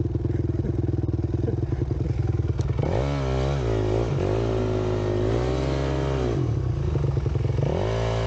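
Honda CRF250X single-cylinder four-stroke dirt bike engine idling, then revved about three seconds in. It dips back briefly, climbs again and holds for about two seconds, eases off, and picks up once more near the end.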